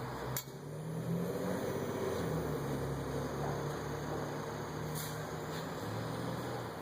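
A steady low machine hum, with a faint click about half a second in and another about five seconds in.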